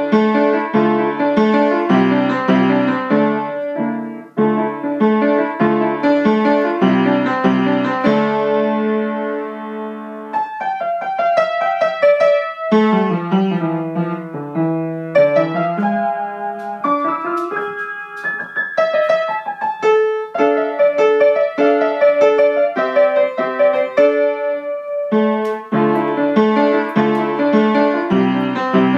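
Solo upright piano playing a lively tarantella. Heavy repeated chords low on the keyboard open the passage and return near the end, with a lighter middle section of fast repeated notes and a higher melody.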